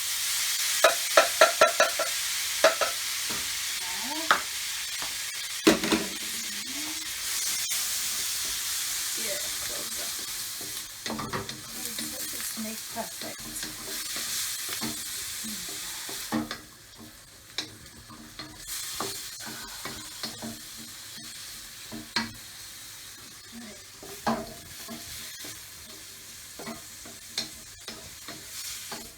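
Lamb sizzling loudly in hot oil with browned garlic in a pan. The sizzle starts suddenly at the beginning and drops to a lower level about halfway through. A metal spatula clanks against the pan a few times at the start, then scrapes and clicks as it stirs.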